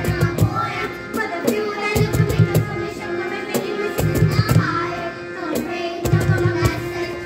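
A group of young girls singing a song together into microphones, over music with a steady beat.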